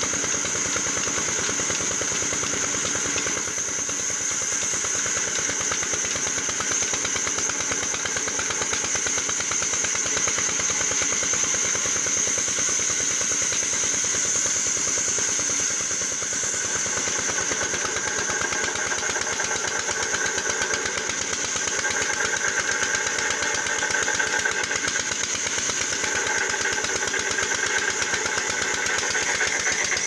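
Engine-driven band sawmill running steadily while its band blade rips a log lengthwise: a constant rapid engine beat under a high, steady blade whine. A thinner, higher tone comes and goes in the second half as the cut goes on.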